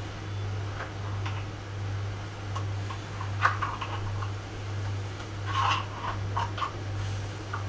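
A few light clinks and knocks of a utensil working in a pot on the stove, clustered about three and a half seconds and about six seconds in, over a steady low hum that swells and fades about twice a second.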